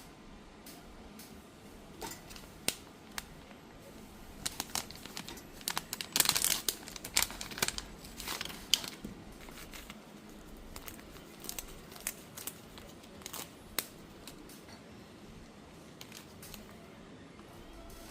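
Crinkling and rustling of packaging being handled, with scattered small clicks and taps; the handling is busiest and loudest about six to nine seconds in.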